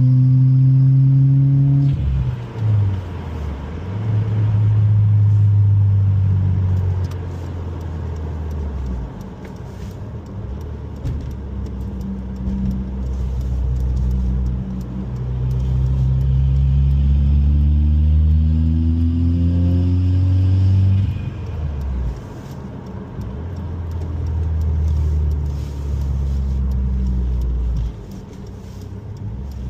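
2018 Subaru WRX's turbocharged flat-four engine pulling the car through the gears: the engine note climbs, drops sharply at each upshift, then climbs again, several times.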